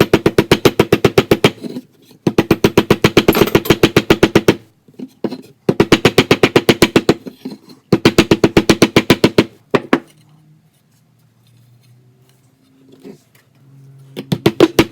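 Rapid hammer blows on the bent metal lip of a speaker frame, about eight strikes a second, in four volleys of a second or two each. A quiet pause of a few seconds follows, and the hammering resumes near the end.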